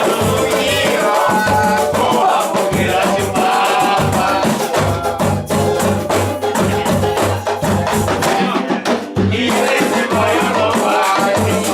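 Samba band music with a steady bass line and shaker and drum percussion.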